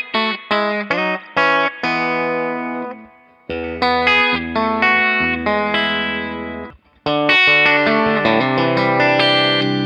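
Electric guitar played clean through a Rocknroll Amps JK15R, a 15-watt valve amp with two EL84 power valves: a few quick picked notes, then ringing chords. The sound dies away twice, about three seconds in and just before seven seconds, before the next chord is struck.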